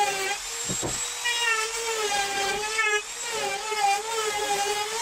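Compact trim router cutting along the edge of a wooden frame: a steady high whine whose pitch wavers as the bit takes the wood, with one brief knock about a second in.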